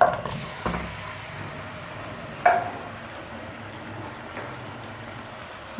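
Raw beef pieces going into hot cooking oil in a karahi, starting with a burst of sizzling that settles into a steady sizzle. A couple of knocks, the sharpest about two and a half seconds in.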